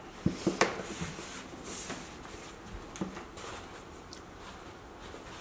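Soft mouth and chewing sounds, a few small clicks in the first second, then faint rustling as a paper napkin is handled.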